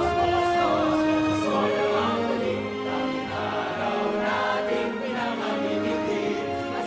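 A choir singing with musical accompaniment: several voices holding long notes with vibrato, overlapping in a slow passage.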